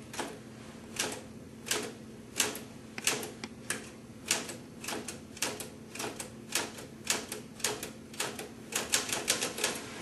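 Typewriter keys struck one at a time in slow, irregular hunt-and-peck typing, the clacks coming quicker in a bunch near the end.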